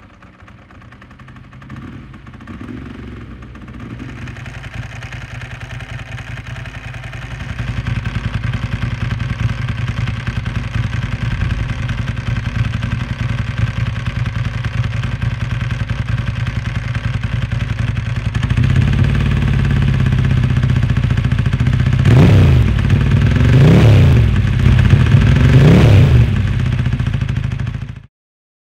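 Ducati Monster S4Rs's 998 cc L-twin engine idling at about 1,000 rpm, then revved up toward 2,000 rpm in three blips about two seconds apart before the sound cuts off suddenly.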